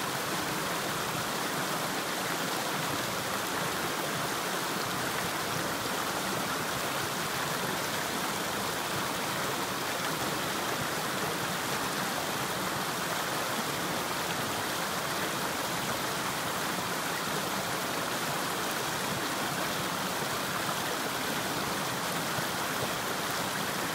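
A small rocky stream rushing and splashing over boulders in a steady, unbroken flow.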